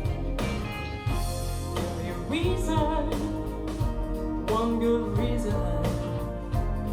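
A song with a woman singing over a band, with singing and instruments throughout, played back through a pair of Wharfedale Diamond 225 bookshelf speakers.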